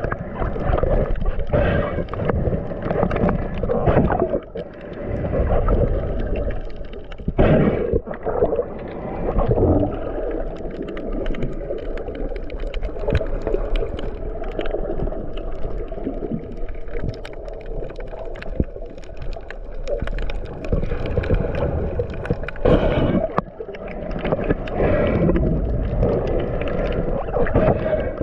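Muffled underwater sound from a diving camera: water rushing and gurgling, with scattered small clicks.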